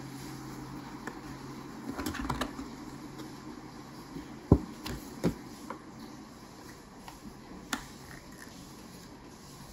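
A kraft paperboard cake box being opened by hand: a quick cluster of crisp paper clicks and crinkles about two seconds in, then two sharp low thumps around the middle and a single light click near the end as the lid flaps are folded back.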